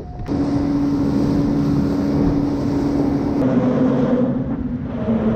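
A small boat's outboard motor running under way, with wind noise on the microphone. The engine's steady tone drops a little about three and a half seconds in and again near the end.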